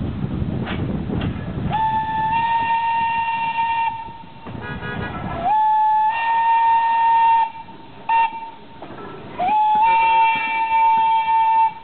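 Train whistle blowing the grade-crossing signal: two long blasts, a short one, then a long one, each steady in pitch after a quick upward slide. A low rumble of the approaching train comes before the first blast.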